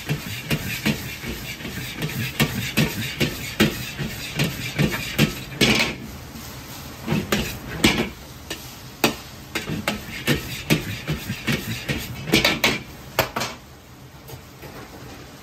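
Metal ladle clanking and scraping against an iron wok as fried rice is tossed and stir-fried over a hot burner, at about two to three knocks a second over a steady sizzle. The clanking stops about a second and a half before the end, leaving only the sizzle.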